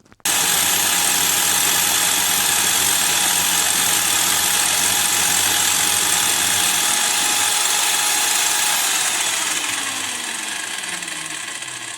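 Lidl pillar drill's electric motor switched on and running steadily with a high whine, then switched off about nine seconds in and spinning down, its pitch falling and the sound fading.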